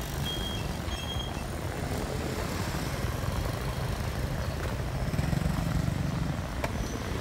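Street ambience: a steady low rumble of motorbike traffic. A few faint short high tones sound in the first second and a single click comes near the end.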